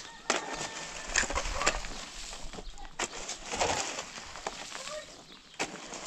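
Hand tools digging stony ground: a shovel blade driven into gravel and rock and a hammer striking stone, about half a dozen sharp hits at uneven intervals.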